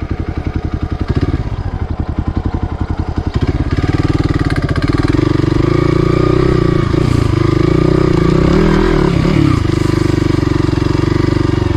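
Hero Xpulse 200's single-cylinder motorcycle engine pulling at low revs, each firing pulse distinct. About three and a half seconds in the revs rise and it runs more steadily, dipping briefly in pitch twice.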